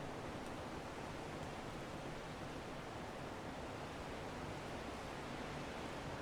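Strong wind blowing as a steady, even rush, without distinct gusts or breaks.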